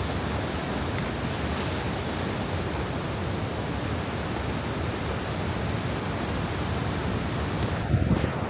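Ocean surf washing steadily on the shore, an even continuous rush. Near the end it gives way to gusty wind buffeting the microphone.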